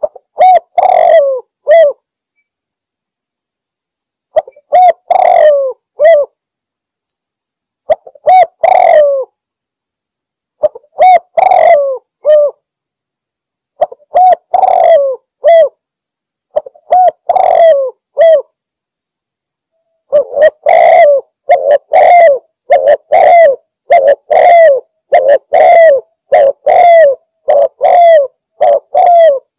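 Spotted dove (tekukur) cooing in its rival-challenging call: short phrases of two or three coos every few seconds with dead silence between, then from about two-thirds of the way through an unbroken run of coos, roughly one a second.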